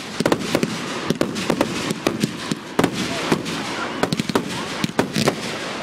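Fireworks going off close overhead: a dense, continuous crackle of sharp cracks and pops, several a second.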